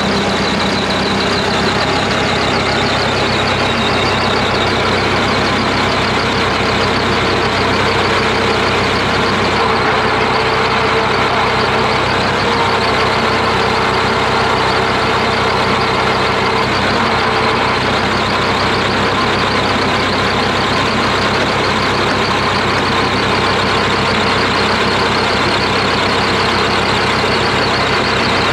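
Perkins diesel engine of a Chamberlain R1250 tractor crane running steadily at an even pitch.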